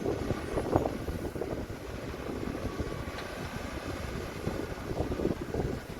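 Heavy earthmoving machinery running: a steady low diesel rumble with scattered short knocks.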